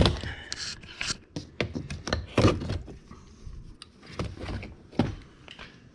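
A plastic door-panel trim piece being pried up with a screwdriver: a run of irregular sharp clicks and knocks as the plastic gives and the tool shifts.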